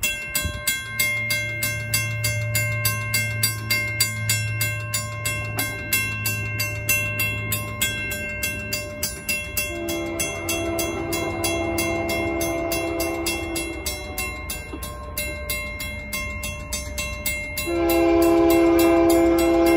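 A WCH second-generation mechanical crossing bell starts ringing as the crossing activates, struck in a steady quick rhythm throughout. An approaching Union Pacific locomotive's air horn sounds a long blast about ten seconds in and a louder long blast near the end.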